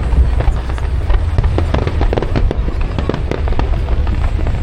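Aerial fireworks display: a rapid, dense run of bangs and crackles over a continuous low rumble of bursts.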